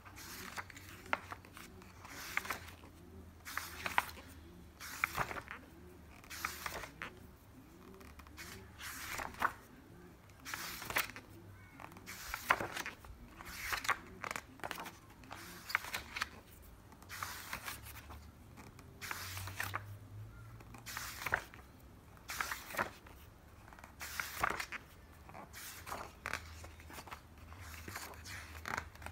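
Paper pages of a large hardcover book being turned by hand one after another, a brief rustle about every second and a half.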